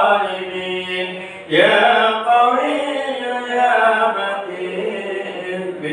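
Melodic Arabic dhikr chanting: voices intoning invocations of God's names over a steady low held note, with a brief pause and a new phrase starting about a second and a half in.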